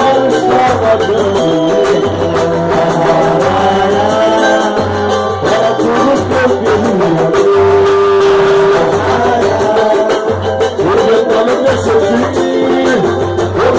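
Live samba music: a band playing with a voice singing over a bass note that pulses about once a second.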